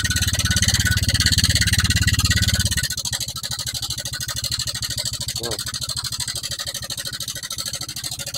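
Honda Vario 125 scooter's single-cylinder engine running with a harsh, clattering mechanical noise, a rattle like a sewing machine or typewriter. It is typical of a slack cam chain and tensioner. The engine note drops slightly about three seconds in and then runs steadily at idle.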